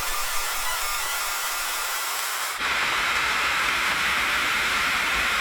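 Rain falling on a window glass, a steady hiss of drops. About halfway through it cuts abruptly to a louder, fuller stretch of rain.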